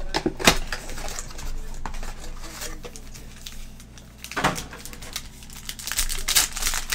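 Foil trading-card pack wrapper crinkling as it is handled and torn open by hand. There are sharp crackles about half a second in and again about four and a half seconds in, then a run of crackling near the end as the wrapper is pulled apart.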